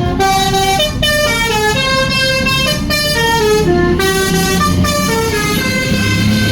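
Bus 'telolet' horn, a set of switched air horns, playing a quick multi-note tune, notes changing several times a second with two brief breaks, over the low rumble of the bus's engine.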